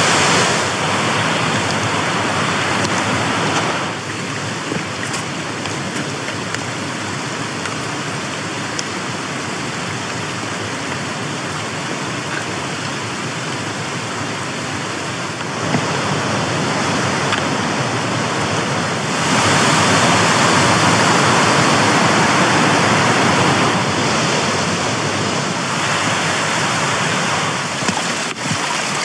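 White water of a rocky mountain stream rushing and tumbling over small waterfalls, a steady noise that gets louder and quieter a few times.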